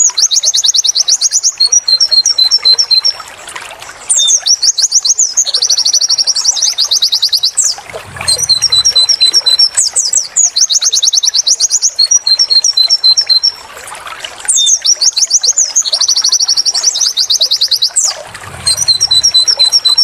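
Pleci (white-eye) song: bright, high repeated 'wit wit' notes alternating with fast trilled 'tulit tulit' runs. The same phrase sequence recurs about every five seconds, like a looped recording.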